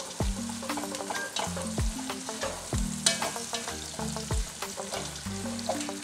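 Sliced red onions sizzling in hot oil in a pot, with a spatula scraping and stirring them now and then. They are at the start of frying down to translucent and caramelized. Background music with a bass line and drum thumps plays underneath.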